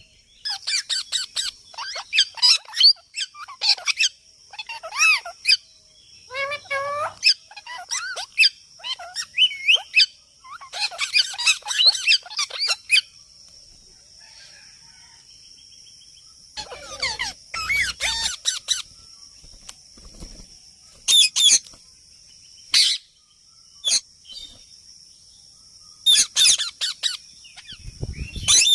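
A parrot calling in clusters of short, quick chirps and squawks, with pauses of several seconds between bunches. A steady high-pitched whine runs underneath, with a few low thuds.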